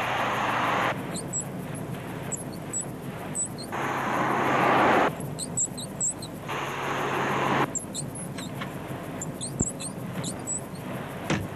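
A VW Golf Mk2 squeaking: many short, high-pitched squeaks at irregular intervals. Three louder rushing sounds, each about a second long, come over a low hum, one at the start, one about four seconds in and one about six and a half seconds in.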